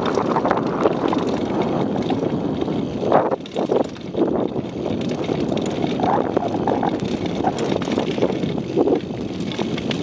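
Mountain bike descending a rocky dirt downhill trail at speed: tyres rolling over dirt and loose stones, with short rattles and knocks from the bike over bumps, under a steady rush of wind on the microphone.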